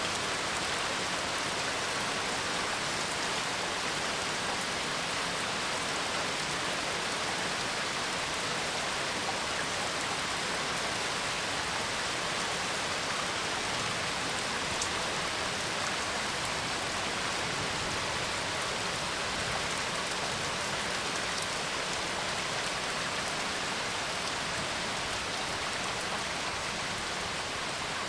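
Steady rain falling and pattering, an even hiss with occasional faint drop ticks; no thunder is heard.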